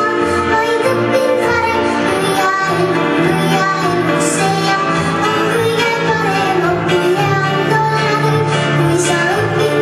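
A song with a high singing voice over an instrumental backing.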